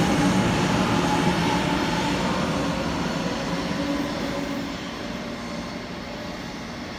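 500 series Shinkansen (7000 series V7 set) pulling away: the motors' inverter tones and the train's running noise fade steadily as it recedes, the tones dying out a little over halfway through.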